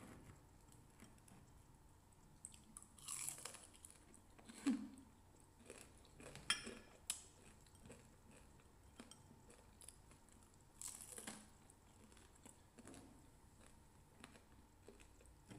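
Faint chewing and crunching of deep-fried, batter-coated quail eggs (kwek-kwek), with a handful of sharper clicks and taps against the dish scattered through.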